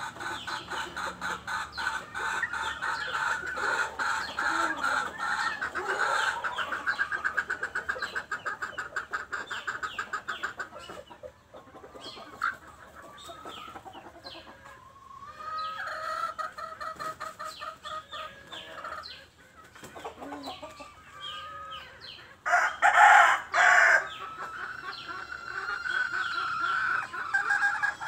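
Native village chickens calling and clucking in a poultry shed, with rapid dense calling for the first ten seconds or so. A loud pitched call, a rooster crowing, comes about 23 seconds in. Near the end a steady chorus of duckling peeping comes in.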